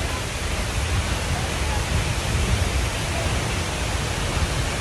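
Steady rush of the La Fortuna waterfall: a dense, even noise with a deep rumble underneath.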